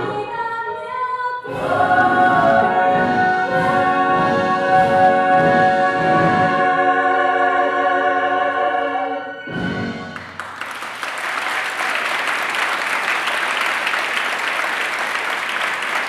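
Musical theatre cast singing a long held closing chord with orchestral accompaniment; the chord ends about nine and a half seconds in, and an audience breaks into steady applause.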